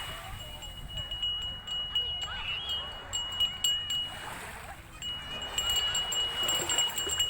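An ice cream seller's hand bell ringing rapidly with one steady high tone. It stops about four and a half seconds in and starts again about half a second later. Sea waves and wind noise sound underneath.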